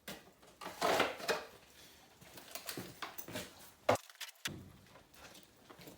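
Hand file scraping over the cutters of a Stihl MS170 chainsaw chain during sharpening, a few irregular strokes with small clicks and knocks from handling the saw, and a sharp click about four seconds in.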